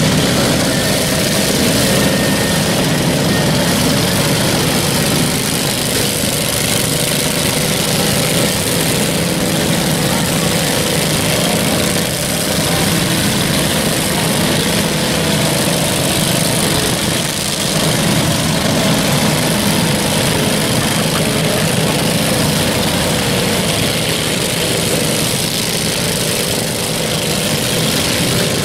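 Several riding lawn mower and garden tractor engines running at once, a steady, loud din of overlapping engine notes as the mowers push and ram one another.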